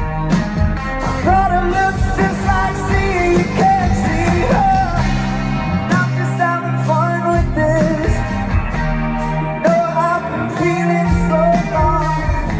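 Pop song playing: a lead singing voice over a steady beat and bass line.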